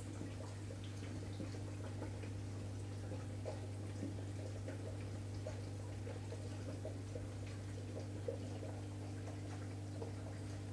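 Steady low hum of aquarium equipment running, with faint scattered ticks and drips of water over it.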